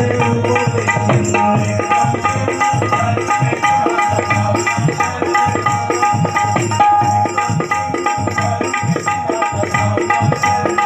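Instrumental bhajan accompaniment: a hand drum playing a quick, steady beat under sustained held notes.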